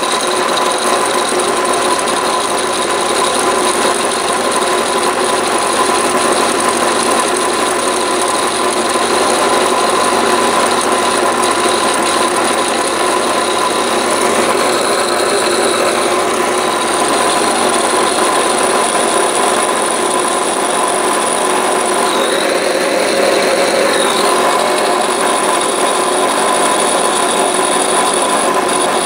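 Drill press running an end mill that side-cuts an aluminum plate held in a cross-slide milling vise: a steady cutting noise with a high whine, going on throughout.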